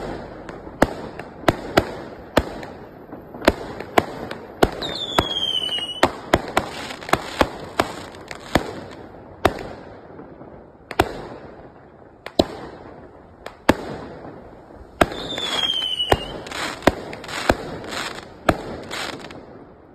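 A 49-shot firework cake firing: sharp bangs one after another, roughly one or two a second, with crackling between them. Twice a whistle falling in pitch sounds over the bangs, about five seconds in and again about fifteen seconds in, and near the end the shots come in a quicker run of pops.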